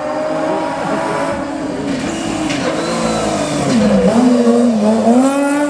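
Kia hillclimb race car's engine running hard as it approaches, growing louder. Its pitch drops into a bend about four seconds in, then rises again as it accelerates out.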